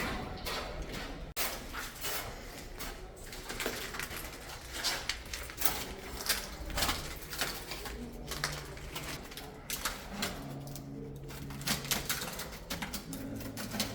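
Irregular knocks and clicks in a room. A low steady drone comes in about eight seconds in and again near the end.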